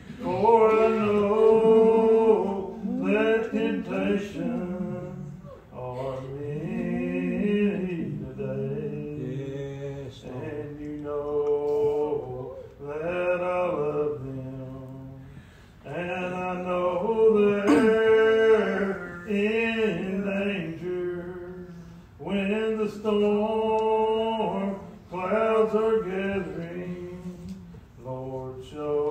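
Slow, unaccompanied Old Regular Baptist hymn singing led by a man's voice, each line drawn out in long held, gliding notes, with short breaks between phrases.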